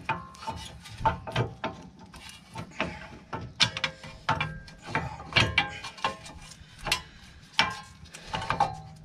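Steel brake shoes, springs and adjuster of a van's rear drum brake clicking and clinking against the backing plate as they are worked into place by hand: irregular metallic clicks and clanks, some with a short ring.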